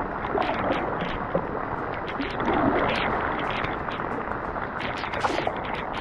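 Water splashing and lapping around a small fishing kayak, an irregular run of sloshes and light splashes.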